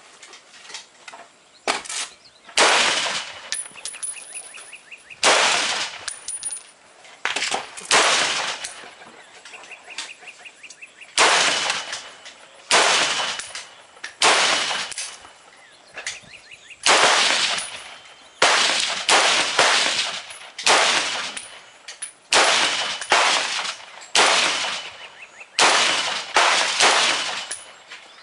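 FN SCAR 17S Heavy rifle in 7.62mm NATO fired semi-automatically: about twenty single shots at uneven intervals of roughly one to two seconds, each with a short echoing tail.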